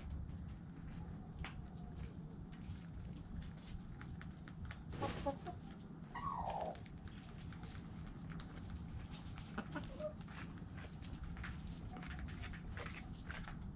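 Backyard chickens clucking, with a louder outburst about five seconds in and then one short call that falls in pitch. Scattered small clicks throughout, over a steady low hum.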